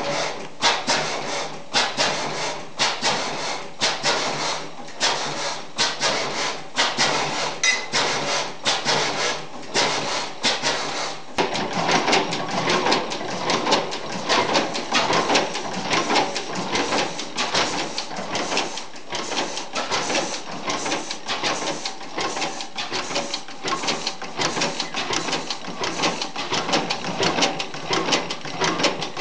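1903 40 hp Union stationary gas engine running, with a fast, regular mechanical clatter of clicks; the sound shifts a little about eleven seconds in.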